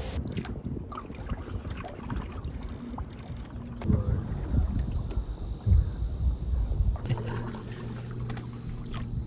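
Wind rumbling on the microphone over water sounds from a canoe being paddled on a river, with a few louder gusts. The background changes abruptly a few times.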